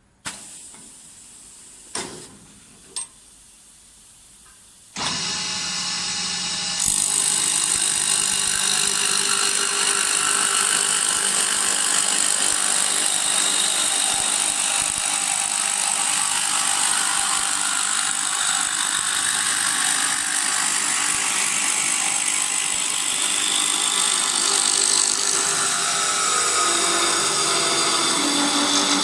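Automatic wood-turning lathe: a few sharp clicks, then the machine starts about five seconds in, gets louder a couple of seconds later, and runs steadily with a high whine.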